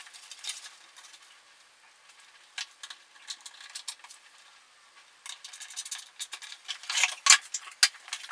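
Hand-tool handling on a wooden workbench: small clicks and scrapes while a screw is driven through a template with a hand screwdriver, then a louder spell of sharp clicks and clatter near the end as tools are set down and picked up.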